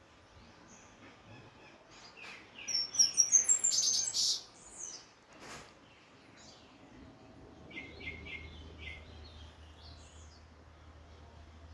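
Double-collared seedeater (coleiro) singing. A burst of quick, high chirping notes a couple of seconds in is the loudest part, and a shorter run of rapid repeated notes follows later. A low steady hum sits underneath near the end.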